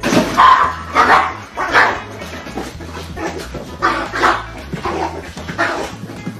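A dog barking repeatedly, about nine barks, the loudest in the first two seconds.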